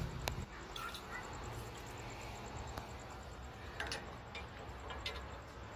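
Quiet outdoor background noise: a low steady rumble with a few faint, short clicks, one near the start and a couple around four and five seconds in.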